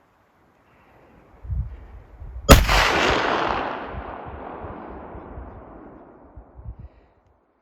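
A single muzzleloader rifle shot about two and a half seconds in, its boom rolling away and fading over several seconds. Low thumps come shortly before and near the end.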